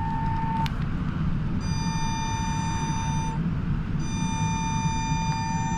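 Trolleybus on the move, a low road rumble under the high, steady whine of its electric traction drive; the whine cuts out briefly twice and returns, and near the end a second tone starts to fall in pitch.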